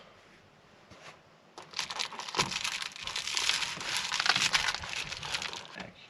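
Snack packaging crinkling and rustling as it is handled, starting about a second and a half in and going on for about four seconds.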